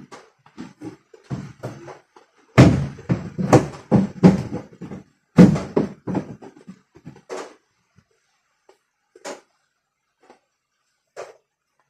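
Irregular knocks and clatter of hard objects being handled, loudest in a cluster of hits a few seconds in, then thinning to a few scattered clicks.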